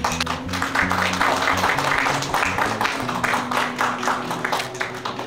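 Audience applause that starts suddenly, is dense for about four seconds and thins out near the end, over quiet background music.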